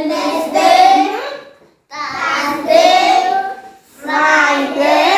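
A class of young children singing together in unison, in three phrases with short breaks between them.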